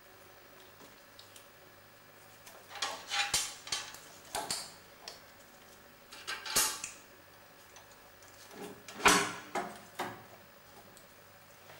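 Scattered clicks, knocks and short scrapes of plastic and metal parts being handled: the steering housing cover and red pedal lever of a Wolf Garten Cart being worked by hand. The loudest knock comes about nine seconds in.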